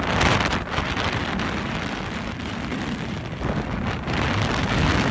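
Hurricane wind buffeting the microphone in a steady low rumble over the rush of storm surf breaking against a seawall.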